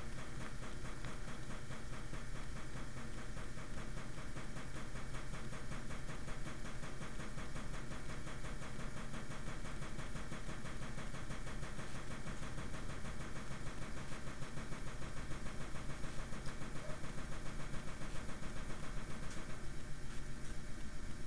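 A steady machine hum with a fast rhythmic pulse, the pulsing growing stronger, at about four beats a second, about two-thirds of the way through.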